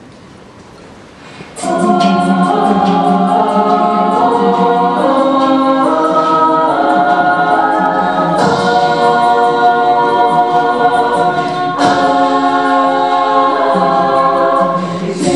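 All-female a cappella group singing held chords in close harmony, starting about a second and a half in. A vocal percussionist adds a steady ticking beat, about four ticks a second.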